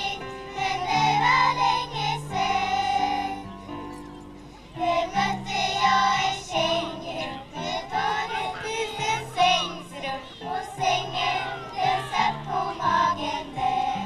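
Children's choir singing with electronic keyboard accompaniment playing held chords, with a short break in the singing about four seconds in before it picks up again.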